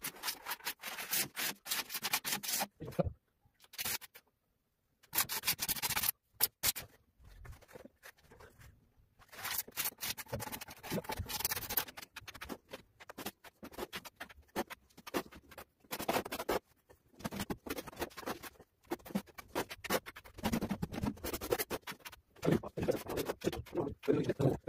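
Small trowel scraping tile adhesive off a hand board and spreading it across a ceiling, in quick irregular scraping strokes with short pauses.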